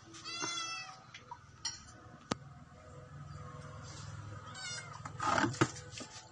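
Kitten meowing in short high-pitched cries, several times, the loudest near the end. A single sharp click about two seconds in.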